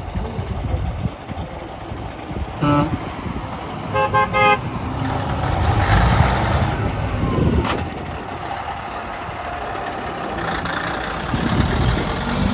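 Truck horn giving one short blast, then a quick run of short toots about a second later, followed by the diesel engine of a cabover semi tractor getting louder as it pulls out and passes, loudest about six seconds in, and pulling hard again near the end as it accelerates away.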